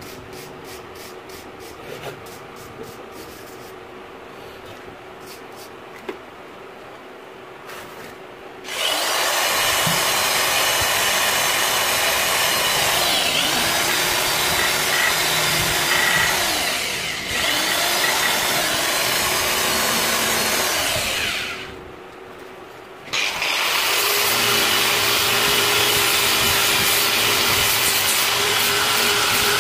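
Handheld power tools wire-brushing and grinding rust off steel held in a vise: a motor runs loudly and steadily, with a short break about 22 seconds in. The first several seconds are quieter, with light scraping and ticks.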